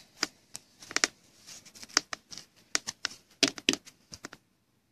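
Trading cards in plastic sleeves and foil-wrapped packs being handled by hand: irregular crinkles and sharp plastic clicks, loudest about three and a half seconds in, stopping shortly before the end.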